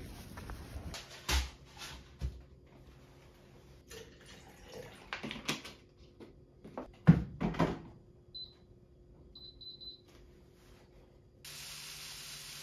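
Kitchen handling sounds: a plastic bottle being handled, with scattered knocks and clatter, the loudest about seven seconds in. This is followed by a few short, high electronic beeps.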